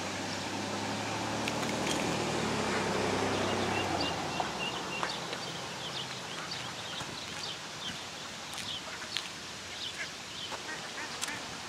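Mallard ducks and ducklings calling: short quacks and high peeps scattered throughout, thickest in the second half. A low engine hum is under the first four seconds or so and fades out.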